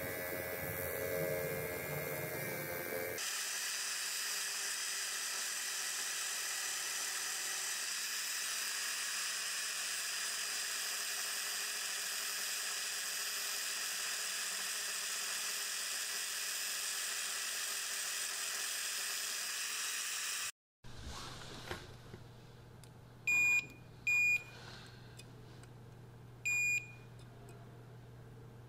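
A bench grinder's wheel runs against the sander's armature for the first few seconds, then a drill press spins the armature with a steady whir and hiss while its copper commutator is polished with an abrasive pad. After a cut, a multimeter's continuity buzzer gives three short, high beeps as the probes touch the stator's field coil leads, signalling an unbroken winding.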